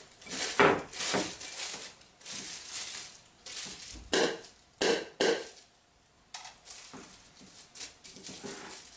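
Plastic film over a glass jar crinkling and rustling as a rubber band is stretched on around the jar's neck, with several short, sharp handling sounds around the middle.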